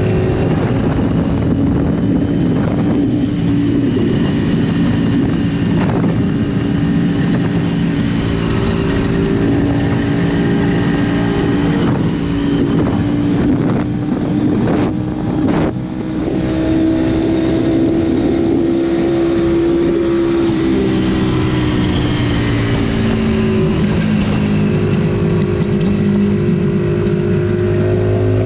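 Aprilia sport bike's engine pulling hard at high speed, heard from the rider's seat with heavy wind noise. The engine note holds steady, with a few brief dips in the middle and a slight drop in pitch about two-thirds of the way through.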